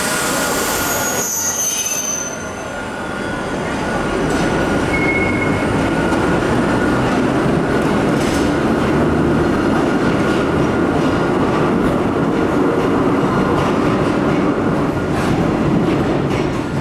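Hakone Tozan Railway electric train pulling out of the station, its nose-suspended traction motors growling as it gets under way and the cars roll past, with some wheel squeal. A short hiss comes at the very start.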